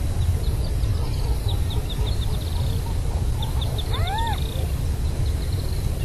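Bird calls: several runs of rapid high-pitched ticking trills, and one short call about four seconds in that rises and falls in pitch, over a steady low rumble.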